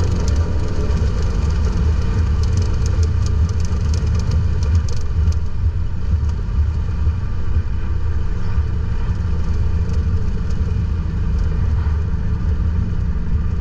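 Inside a 2024 Ford Mustang Dark Horse at speed with the windows down: a steady, heavy wind and road rumble, with the seatbelt slapping and flapping in the wind as a quick run of sharp clicks during the first five seconds or so, fewer after that.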